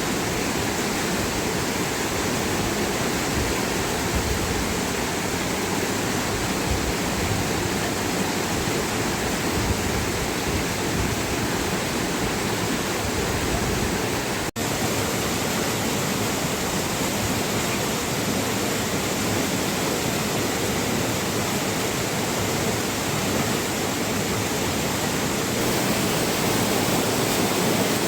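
Steady rushing of water, heavy rain and river noise blended into one even hiss, with a split-second break about halfway through.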